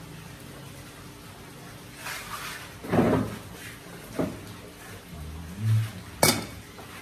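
Dishes and a cooking pot being handled at a table: a few scattered knocks and clatters from about two seconds in, then a single sharp clank near the end as a lid is set on an aluminium pot.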